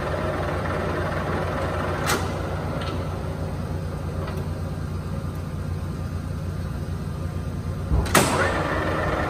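Clausing Colchester engine lathe running with a steady low hum while its spindle is stopped and restarted with the control levers. A metallic clunk comes about two seconds in and a louder clunk about eight seconds in, after which the spindle starts turning again with a faint gear whine.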